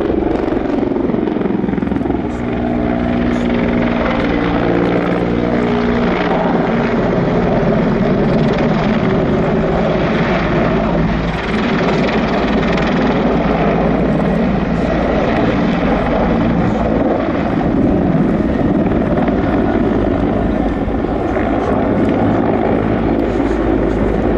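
Mil Mi-24 Hind attack helicopter flying past: the main rotor beats steadily over the turbine engines. A whine drops in pitch a couple of seconds in as the helicopter passes.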